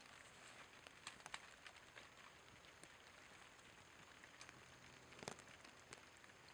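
Near silence: a faint steady hiss with a few light clicks, around a second in and again near the end.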